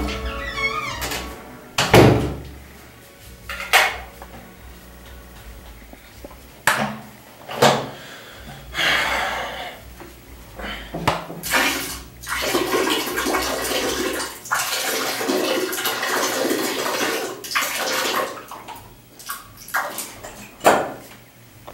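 Water running in a small tiled bathroom, in stretches of steady rushing, broken by several sharp knocks and bumps.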